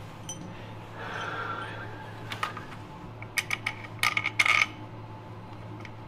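Metal tools and engine parts clinking and scraping as they are handled while the oil filter housing is refitted: a few sharp, irregular metallic clicks with a brief ring, loudest a little past the middle, over a steady low hum.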